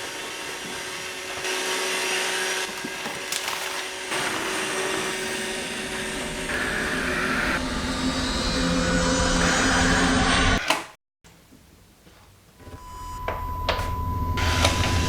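Roomba robot vacuum running with a steady whirring suction noise that stops abruptly after about ten seconds. A quieter low hum then builds, with a thin steady tone over it near the end.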